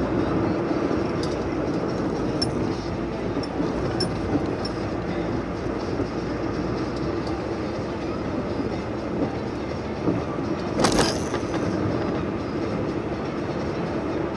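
Steady road noise of a car driving on a highway, heard from inside the cabin, with a few faint ticks and a brief louder rush about eleven seconds in.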